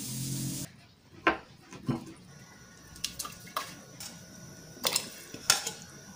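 Pieces of beef and vegetables dropped into a stainless-steel stockpot of water, landing with about six separate splashes and plops. A steady hiss cuts off under a second in.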